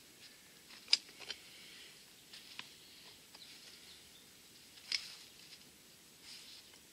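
Large pipe wrench clicking on a ribbed steel rebar as it is gripped and twisted to break the bar's hold in the soil. Two sharp metallic clicks, about a second in and about five seconds in, with a few fainter ticks between.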